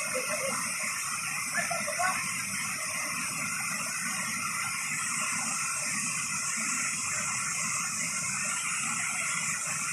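Small waterfall cascading over rocks into a pool: a steady rush of falling water.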